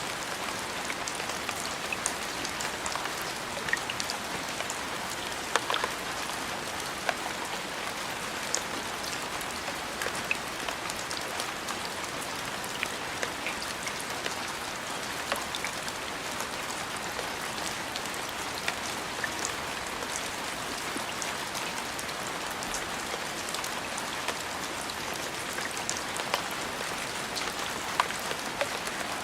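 Steady rain falling: an even hiss, with scattered sharp ticks of single drops striking a surface.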